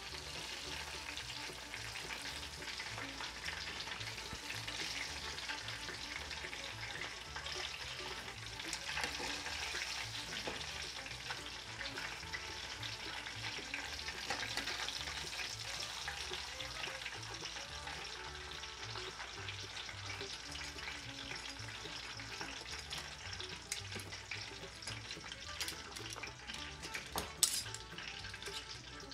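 Hot oil frying, a steady sizzle with fine crackles throughout, over faint background music with a soft bass line.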